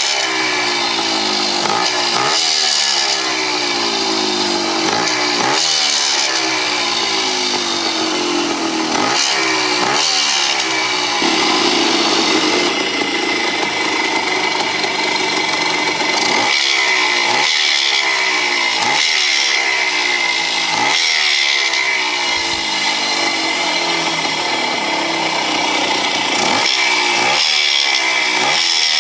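1975 Bultaco Sherpa T 350's single-cylinder two-stroke engine running, its throttle blipped repeatedly: each rev rises sharply and falls back, with a steadier stretch of running near the middle.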